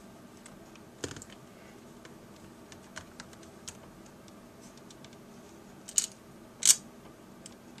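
Light, scattered clicks and taps of small laptop parts and tools being handled during screen reassembly, with two sharper, louder clicks about six seconds in.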